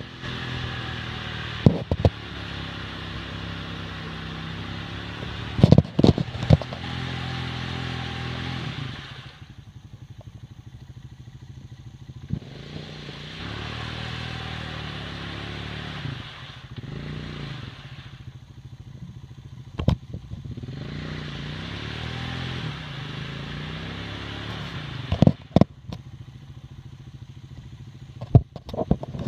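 Honda Rancher 350 ATV's single-cylinder engine revving hard and dropping back toward idle again and again as the stuck quad tries to pull free of the mud and water. Sharp clattering knocks come a few times.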